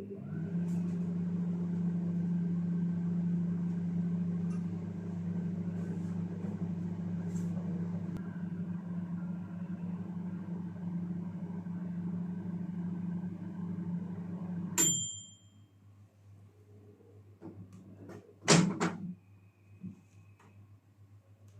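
Sharp R-219T microwave oven running a test cycle with a steady electrical hum. It stops about 15 seconds in with a short ding as the timer ends. A loud clunk follows a few seconds later.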